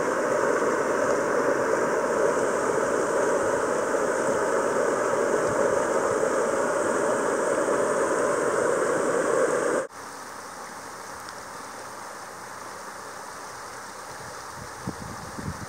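Rushing stream water, a loud steady rush; about ten seconds in it cuts suddenly to a quieter, gentler flow of water.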